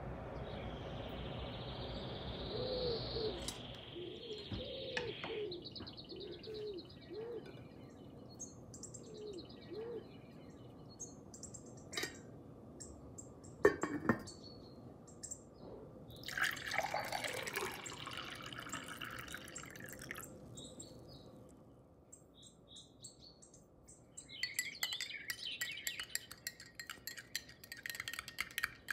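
Tableware handling: a sharp metallic clink from a stainless-steel pot lid about halfway through, then near the end a metal spoon stirring and clinking quickly against a glass of water.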